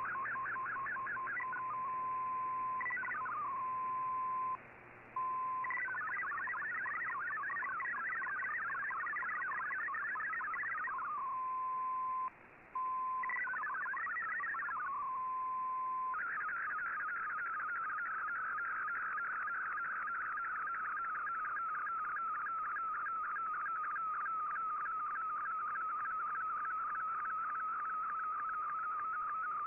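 Shortwave radio receiving an MFSK digital data broadcast: a warbling, hopping run of tones with spells of a single steady tone, cutting out briefly twice. About halfway through it changes to an MFSK picture transmission, a steadier band of tones with an even, rhythmic pulse as the image is sent line by line.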